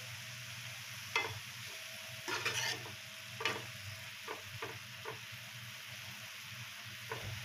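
Spatula stirring shredded ash gourd in a metal karahi: irregular scrapes and knocks against the pan every second or so, over a steady sizzle of the vegetables frying in oil.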